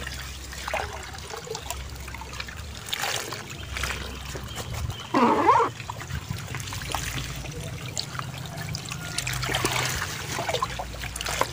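Water trickling and splashing as gourami fry are scooped from a shallow pond with a hand net and the pond liner is gathered, with many small knocks and clicks throughout. A short, loud vocal sound stands out about five seconds in.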